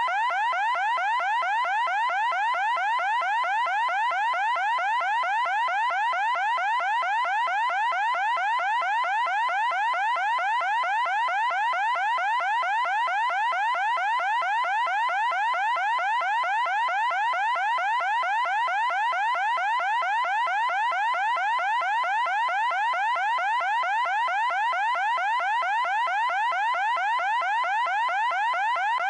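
Electronic alarm tone: a shrill, rapidly repeating rising sweep at a constant loud level, continuing unbroken.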